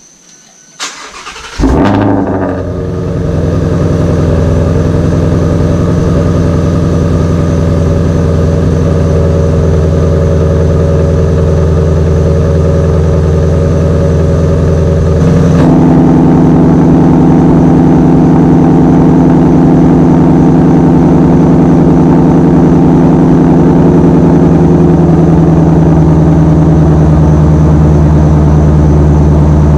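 Ford Shelby GT350's 5.2-litre flat-plane-crank V8 cold-started after sitting for a week: it cranks briefly, catches a little under two seconds in and settles into a loud, steady idle. About halfway through, the pitch of the idle shifts to a slightly different note.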